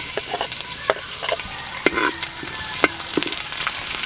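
Sliced garlic sizzling in hot cooking oil in a wok, a steady frying hiss. The spatula scrapes and taps against the pan many times as the garlic is stirred.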